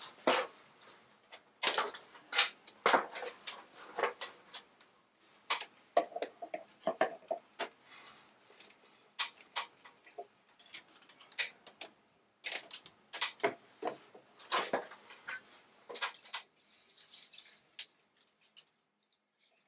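Irregular sharp clicks and knocks of hand work at an overhead wooden beam, a few of them loud, with a brief faint rustle near the end.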